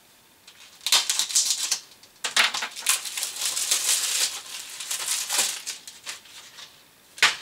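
Crinkling, rustling plastic as a DVD case and its packaging are handled, in two spells. A single sharp click near the end is the case snapping open.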